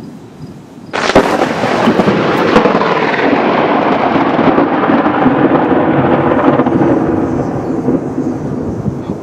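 Thunder from a close lightning strike: a sudden sharp crack about a second in, a few more cracks, then a loud rolling rumble that slowly fades over several seconds.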